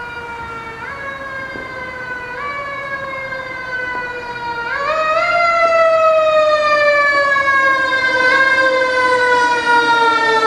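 Fire engine's Federal Signal Q2B mechanical siren. It is wound up in short rises and left to coast down in pitch between them, with one big wind-up about five seconds in followed by a long falling wail. It grows louder as the engine approaches.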